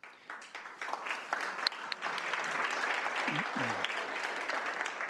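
Audience applauding: the clapping starts at once and builds over about a second into steady applause.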